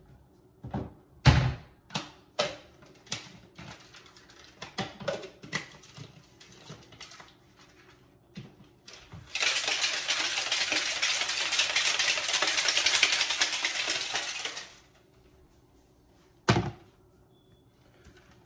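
Sounds of mixing a pre-workout drink: a run of sharp plastic clicks and knocks from handling the tub, scoop and shaker bottle. About nine seconds in comes a loud, steady rushing noise lasting about five seconds that starts and stops abruptly. One more sharp knock follows near the end.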